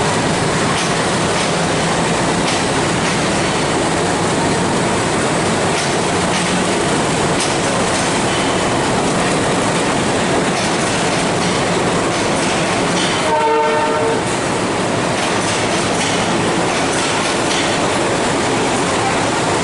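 Moving passenger train running steadily, its wheels clattering over the rail joints, with a short horn blast about thirteen seconds in.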